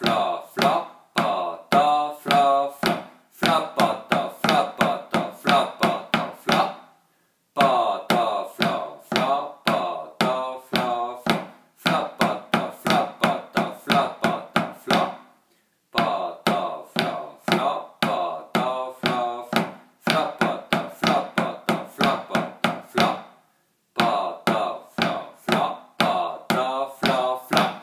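Drumsticks playing the pa-ta-fla and pa-ta-fla-fla drum rudiment exercises: quick strokes mixed with flams, each stroke ringing briefly. The strokes come in four phrases of about seven seconds each, with short pauses between them.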